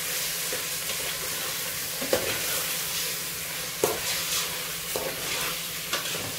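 Raw chicken pieces sizzling as they are sautéed and stirred in a metal pot, with a metal spoon knocking against the pot a few times.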